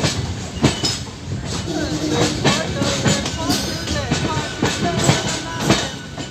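Passenger train running, its wheels clacking over rail joints with irregular sharp knocks through a steady rumble. Passengers' voices are heard faintly in the background.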